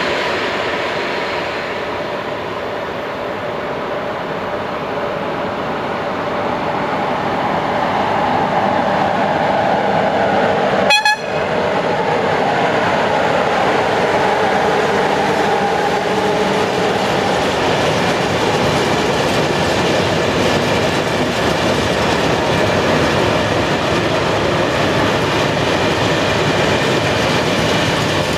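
Electric freight locomotive approaching and passing close by, its tones sliding down in pitch as it goes past, followed by a long train of hopper wagons rolling by with steady wheel and rail noise. A single sharp click about eleven seconds in.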